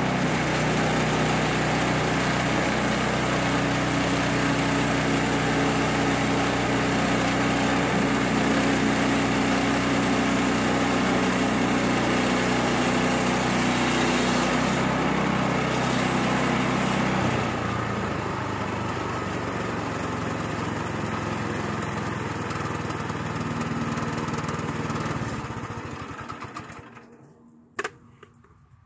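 Small gasoline engine of a Woodland Mills bandsaw sawmill running steadily under load while the band blade cuts through a large spruce log. About two-thirds of the way in the engine note drops and gets quieter, then the engine winds down and stops, followed by a single sharp click.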